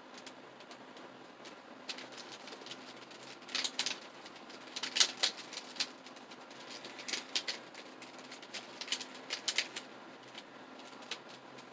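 Plastic 3x3 mirror cube being turned by hand: quick bursts of clicking and clacking as its layers snap round, in several flurries separated by pauses.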